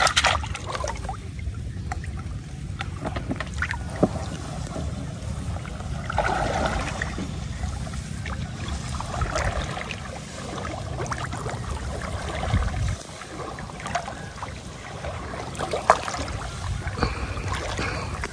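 Water sloshing and trickling over a steady low rumble, with a few scattered knocks.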